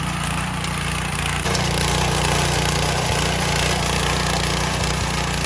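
Craftsman rear-tine tiller's small petrol engine running under load as the tines churn through weedy soil. It is a steady engine sound that gets a little louder about a second and a half in.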